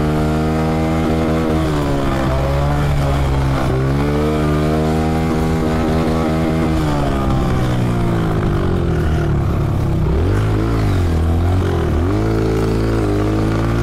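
Honda CRF125F dirt bike's single-cylinder four-stroke engine running under throttle on a motocross track, its pitch held high with brief dips, falling off about seven seconds in, then picking back up about twelve seconds in.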